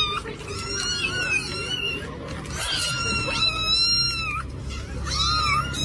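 A cat meowing over and over in high-pitched, wavering calls, one of them drawn out for over a second in the middle.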